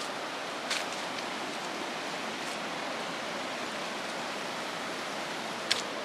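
Steady rushing of a river over rocks below the trail, even and unbroken. Two faint clicks, about a second in and near the end.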